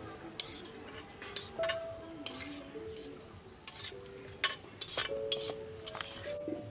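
Metal spatula scraping fried rice out of a metal wok onto a steel plate: a string of short, sharp metallic scrapes and clinks, about a dozen, over soft background music of held notes.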